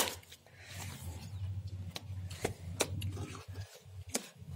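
A plastic pencil box being handled and opened: a sharp click at the start, then a few lighter clicks and rubbing of the hinged plastic lid.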